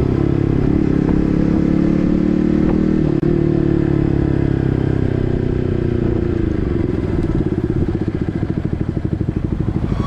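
Yamaha MT-15's single-cylinder engine through an SC Project full-system exhaust, running steadily under way. About six and a half seconds in, the revs drop and the exhaust settles into a lower, pulsing beat.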